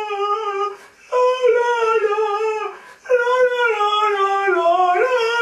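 A man's voice wailing in long wordless notes, each starting high and sliding slowly down, with two short breaks for breath, about one and three seconds in.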